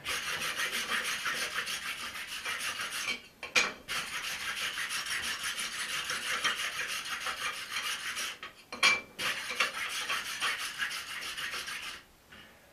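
A hand tool scrubbed fast back and forth over the steel of a forged axe head on the anvil, a dense scratching of many quick strokes. It breaks off twice briefly, each break ending in a sharp knock, and stops shortly before the end.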